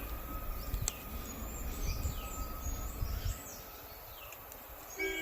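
Birds calling outdoors: a series of short, high, downward-sweeping chirps over a low rumble that fades out after about three seconds.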